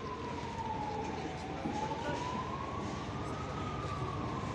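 Emergency vehicle siren on a slow wail: one tone sliding down, then up, then down again over a few seconds, above a low steady rumble.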